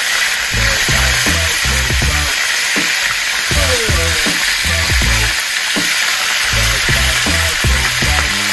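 Food frying in hot oil, a steady crackling sizzle, with music underneath carrying a steady bass beat.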